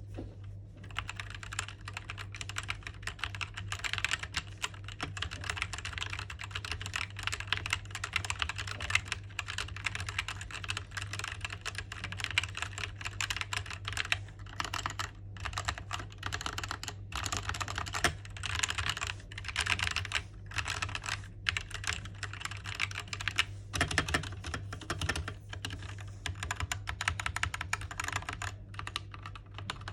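Skyloong GK61 60% mechanical keyboard being typed on fast: dense runs of key clicks broken by a few short pauses, over a steady low hum.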